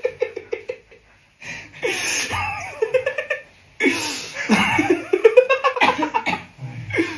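Laughter: a quick run of high, evenly pitched 'ha' pulses that fades out about a second in, then, after a short gap, two longer loud stretches of laughing voices with sliding pitch.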